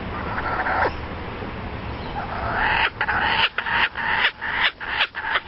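An animal making a rapid string of short, repeated calls, about three a second, starting about three seconds in.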